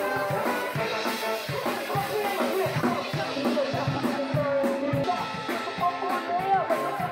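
A live street band playing: a drum kit keeps a steady beat under tuba and saxophone lines.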